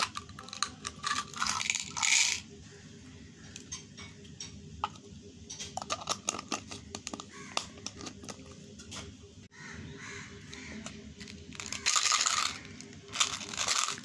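Small candy-coated chocolates pouring out of a plastic baby-bottle candy dispenser into a small bowl: quick runs of light clicks and rattles, mostly in the first couple of seconds and again about six to seven seconds in. Three short harsh rasping sounds stand out, one about two seconds in and two near the end.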